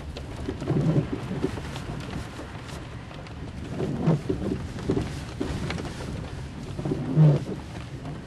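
Rain pattering on a car's windshield and roof, heard from inside the moving car, with a few low dull rumbles about 1, 4 and 7 seconds in.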